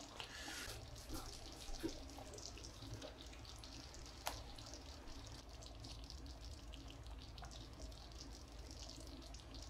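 Butter chicken gravy simmering in a pan, bubbling faintly with scattered small pops and one sharper click a little over four seconds in.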